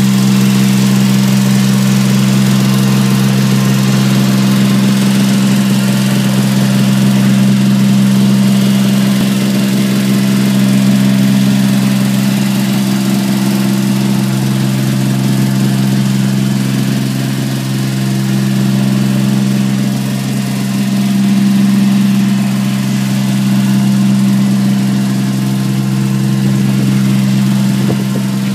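Small compact tractor engine running steadily at an even pitch, with slight swells in loudness.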